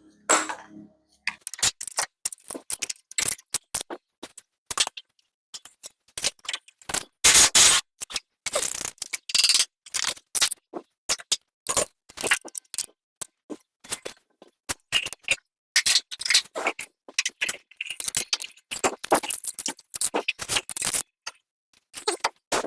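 Hand tools working on the truck's front-end hardware: irregular runs of quick metallic clicks and scrapes with short silent gaps between them.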